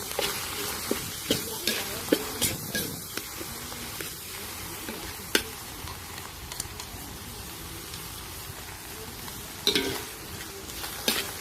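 Minced snake meat sizzling as it is stir-fried in a pan over a strong flame, with a metal spatula scraping and clacking against the pan every so often.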